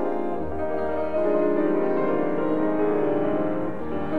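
Background music led by piano, with low notes coming in about half a second in.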